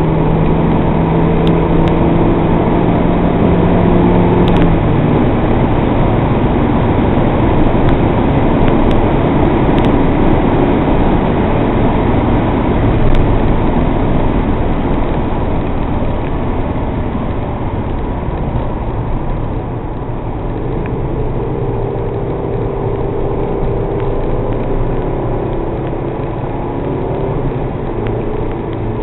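MG TF's engine running under load at speed, heard from inside the cabin, with heavy wind and road roar over it. Around two-thirds of the way through the overall level drops and a steadier engine note comes through.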